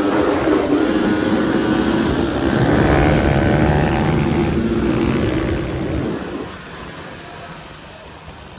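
Dirt bike engine running, its pitch rising for a while in the middle, then fading away over the last two seconds.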